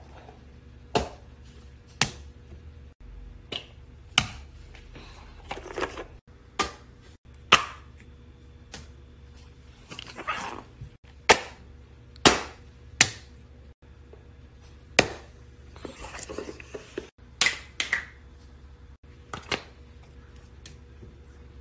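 A fidget toy being handled: sharp clicks roughly once a second, with some rustling in between.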